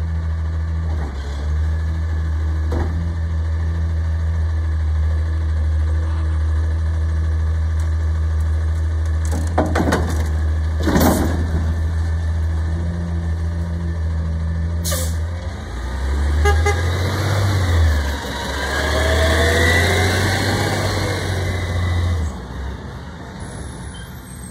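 Front-loader garbage truck's diesel engine idling steadily, with a few sharp clanks about ten seconds in. From about two-thirds of the way through, the engine revs and rises in pitch as the truck pulls away, then drops off near the end.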